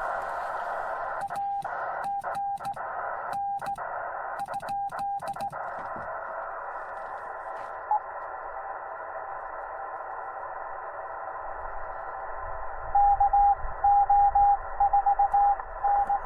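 Morse code from a Yaesu FT-891 transceiver over steady receiver hiss. For a few seconds a single-pitch tone is keyed in dits and dahs, and the hiss cuts out while each tone sounds: the radio's sidetone, with the receiver muted while the operator transmits on a straight key. After a gap, a louder run of Morse at the same pitch is heard near the end.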